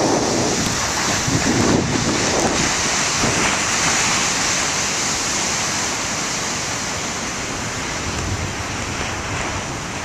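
Heavy ocean surf breaking on a rocky shore: a continuous wash of breaking waves and foam, loudest in the first couple of seconds.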